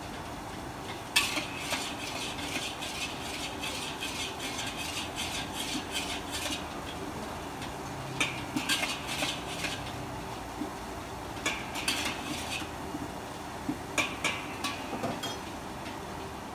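Long-handled metal spatula scraping and clinking against a large steel wok of fried rice in four bursts of rapid strokes. A motorised stirring arm turns the rice over a steady background hum.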